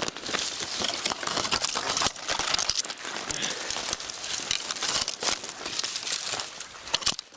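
Bare twigs and branches scraping and rustling against clothing and the camera, with boots crunching in snow, while pushing on foot through a dense winter thicket: a continuous scratchy crackle.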